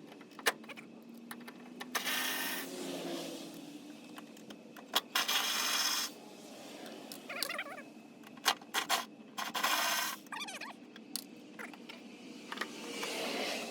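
Hand work on a car's wiring and fittings: scattered sharp metallic clicks and clinks, with a few short stretches of scraping or rasping.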